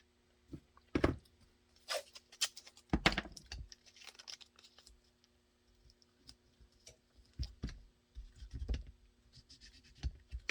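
Irregular clicks, taps and a few heavier knocks of small parts and tools being handled on a workbench while a holster mold is set up, over a faint steady hum.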